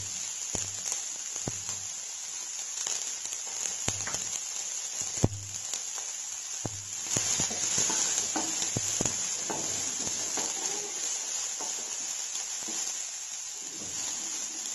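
Chopped onions sizzling in hot oil with curry leaves in a nonstick kadhai. A wooden spatula stirs them, scraping and tapping against the pan now and then.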